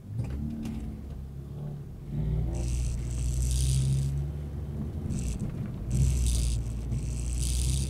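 Car engine accelerating away from a standstill, heard from inside the cabin as a steady low drone, with several short bursts of rattling over it.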